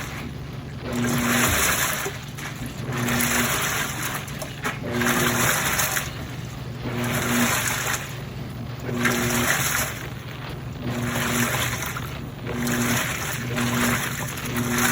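Midea 13 kg top-loading washing machine agitating a load, likely during the rinse. Water sloshes in surges about every two seconds, with a short low motor hum between them as the wash action reverses.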